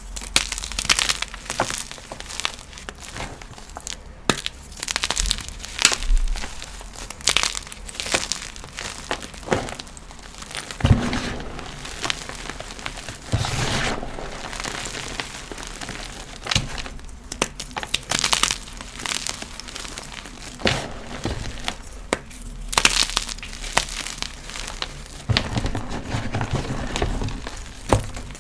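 Blocks of gym chalk being crushed by hand, giving irregular crunches and crumbly crackles with a few louder cracks as pieces break.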